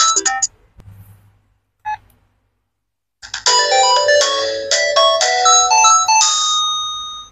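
A Sanex SC-7090i mobile phone's CMX-synthesized tones: a ringtone melody cuts off about half a second in and a short beep sounds near two seconds. From about three seconds in, a chiming synthesized tune plays for about four seconds and fades away, the phone's shutdown melody.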